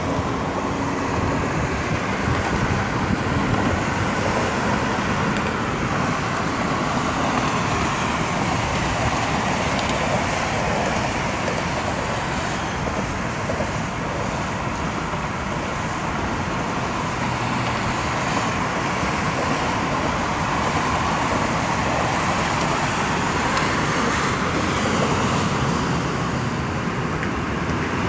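Steady road traffic noise, with cars passing in a continuous wash that swells and eases a little.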